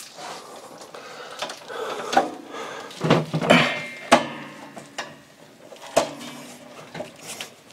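A bundle of insulated electrical wires being pushed and pulled through a knockout into a steel breaker panel: rustling, with several sharp clicks and knocks as the wires and fittings hit the metal box.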